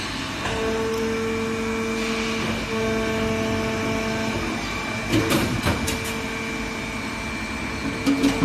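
Nylon cable tie injection molding machine running through its cycle: a steady mechanical hum with several held tones that break off and come back. There are sharp clacks about five seconds in and again near the end as the mold opens.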